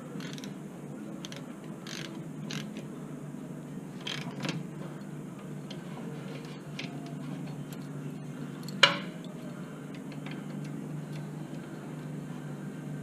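Scattered small metallic clicks and clinks from hand tools working on rear brake parts, with one sharp, loud knock about nine seconds in.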